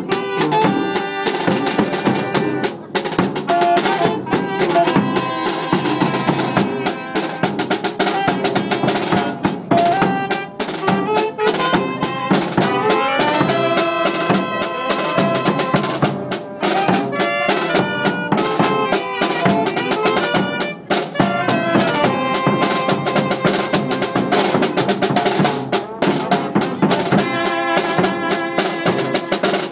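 Tamborazo band playing live: saxophone, trumpets and sousaphone carry the tune over bass drum and snare drum.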